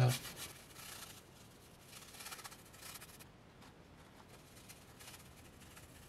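Faint rubbing of a paintbrush laying acrylic paint onto a canvas, a few irregular strokes.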